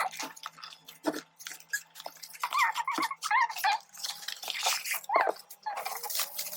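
Packaging being opened by hand: rustling and clicks, with several wavering squeaks in bursts about halfway through and again near the end.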